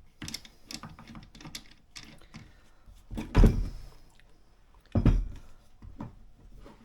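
Handling noise from a plastic-bodied router being turned over on a workbench: a run of small clicks and knocks, then two heavier thumps about three and a half and five seconds in.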